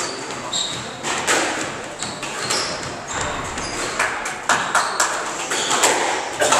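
Squash court sounds: rubber-soled court shoes squeaking on the hardwood floor, and sharp knocks ringing off the court walls. The knocks come thickest near the end, as the serve is struck.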